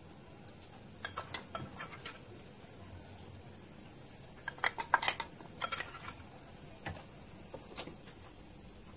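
Scattered light clinks and taps of a metal spoon against a cut-glass jar as ground garam masala is spooned in. They come in a small cluster about a second in, a denser cluster around the middle, and a few more near the end.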